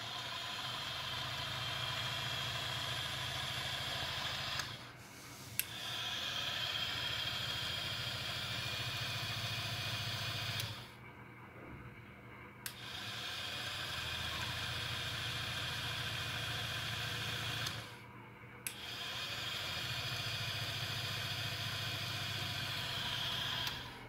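Small electric motor of a 3D-printed toy washing machine turning the drum through a belt and pulley, in a wash-cycle pattern: four runs of about five seconds separated by short pauses. The motor gives a steady whine over a low hum, with a sharp click as each run starts, and it slows down at each stop.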